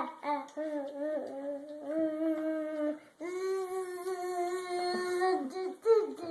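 A young child's voice holding two long, steady sounds, the second a little higher than the first, then a few short syllables near the end: drawn-out phonics sounds practised for learning to read.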